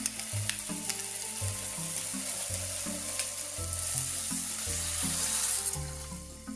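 Food sizzling in hot oil in a pan, with sharp clicks of a utensil stirring it; the sizzle fades out near the end.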